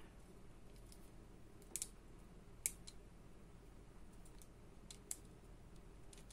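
A few faint, sharp plastic clicks and taps, irregularly spaced, as a small replacement nib is handled and pushed into a drawing-tablet stylus.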